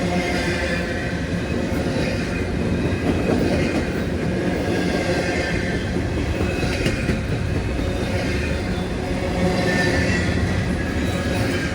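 A train rolling past on the tracks: a continuous heavy rumble of wheels on rail, with high ringing tones that swell and fade every few seconds.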